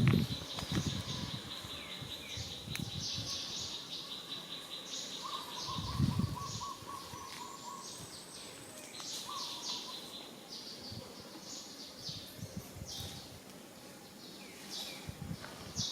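Outdoor natural ambience: an insect's steady high buzzing trill for the first few seconds, then birds chirping in short, repeated high notes, with a few dull low thumps.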